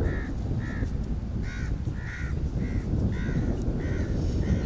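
A crow cawing over and over, short caws about two a second, over a steady low rumble.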